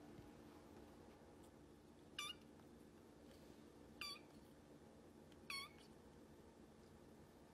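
A kitten giving three short, high-pitched meows, spaced about a second and a half to two seconds apart.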